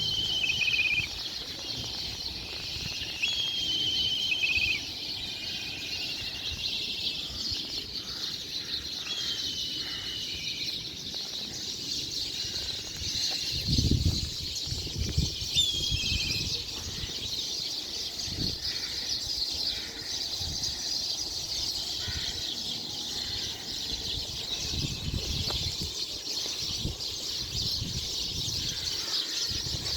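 Many small birds chirping and twittering in a dense morning chorus, with clearer separate chirps and short trills standing out every few seconds. A few low thumps sound near the middle.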